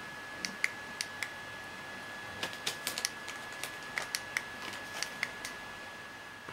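Plastic magazine packaging crackling under a cat's paws and a hand: sharp, irregular clicks, about twenty in a few seconds, over a faint steady high tone.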